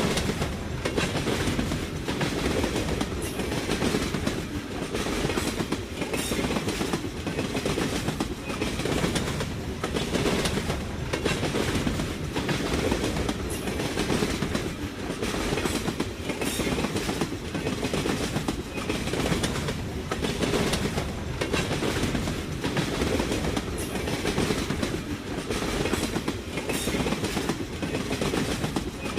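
A train rolling past on the rails: a steady heavy rumble with a continuous run of wheel clicks over rail joints, clickety-clack.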